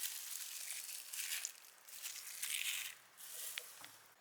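A knife cutting through a block of jelly on a cutting board: faint scraping, crunching strokes in about three bursts, the first about a second and a half long.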